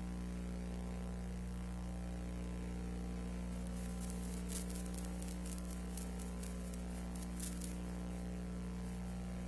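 Steady electrical hum with hiss, with a run of faint high crackles between about four and eight seconds in.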